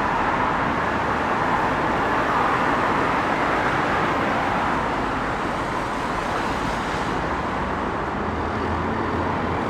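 Steady road vehicle noise, an even rushing sound without distinct events.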